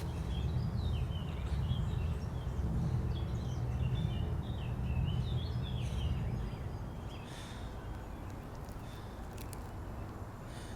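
Small birds chirping, a quick run of short calls that stops about two-thirds of the way through, over a low steady rumble that drops off around the same time.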